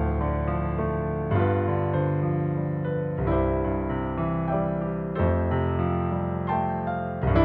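Solo piano ballet-class accompaniment for pliés: slow sustained chords, a new chord struck about every two seconds.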